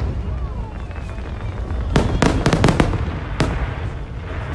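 Aerial fireworks going off: a rapid string of sharp bangs about two seconds in, then one more bang a second later, over a steady low rumble.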